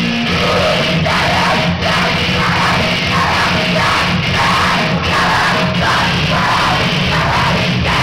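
Loud live grindcore performance: dense distorted music with a vocalist yelling into a microphone.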